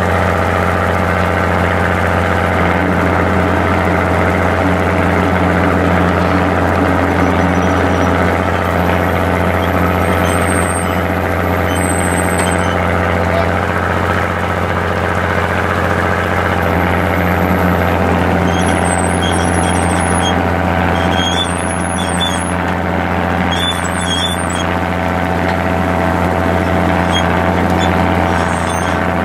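Fishing boat's engine running steadily: a loud, even, low drone with a stack of steady hum tones that holds throughout while the catch is brailed aboard.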